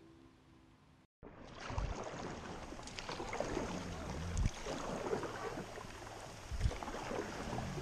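Fading background music, then after a cut about a second in, a plastic sit-on-top kayak being paddled: the paddle blades splash and water laps against the hull, with three low thumps along the way.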